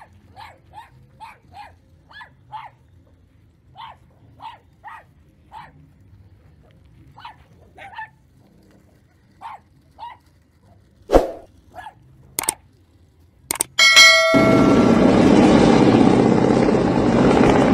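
Small dogs giving short, repeated yapping barks. Near the end a couple of sharp cracks and a brief chime, then a loud, steady helicopter noise sets in abruptly.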